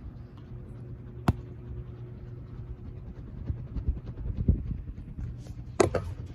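Ceiling fan motor humming steadily, with a sharp click about a second in and a short clatter of clicks near the end.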